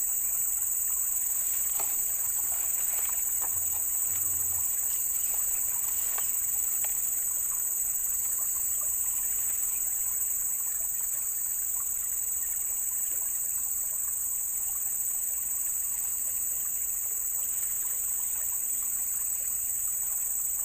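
Steady high-pitched insect chorus, with two unbroken shrill tones, one very high, holding unchanged throughout, with a few faint ticks in the first few seconds.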